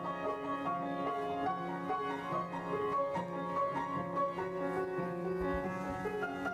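Upright piano playing a melody of held notes.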